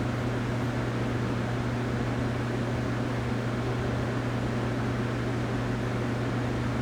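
A steady low hum over an even hiss, unchanging throughout, like a fan or similar appliance running in the room.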